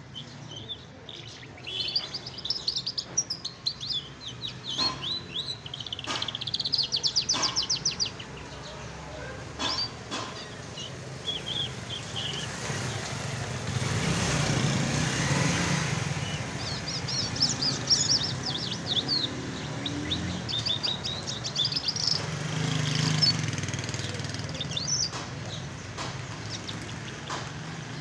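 Caged lark (agan jal) singing in long phrases of fast, rattling trills and chirps, one about 2 to 8 seconds in and another from about 17 to 23 seconds, with shorter chirps between. A passing vehicle rumbles in the middle.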